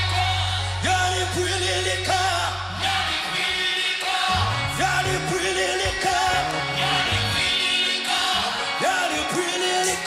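Live praise and worship music: singing over a band. A held bass note gives way to a moving bass line about three seconds in.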